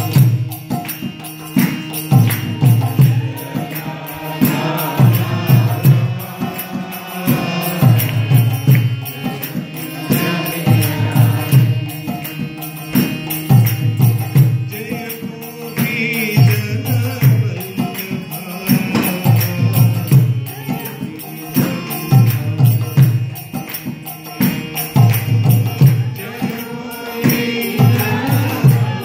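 Kirtan: a male voice singing a devotional chant over a droning harmonium, with a mridanga drum beating a repeating low pattern and small hand cymbals ticking on the beat.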